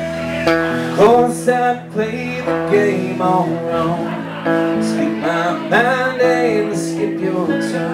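Live band playing: a male lead vocal sung over electric guitars and electric bass guitar, with sustained chords underneath.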